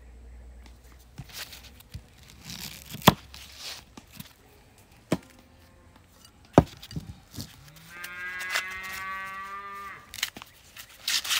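Fresh corn husks being torn and peeled off the cob by hand, crackly rustling, with two sharp knocks on a wooden cutting board. Near the end a cow moos once, a single long call lasting about two seconds.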